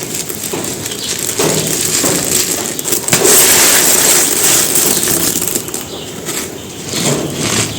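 Dry pure cement stones crumbling and being crushed, a dense gritty crackle of many small cracks, loudest from about three to five seconds in.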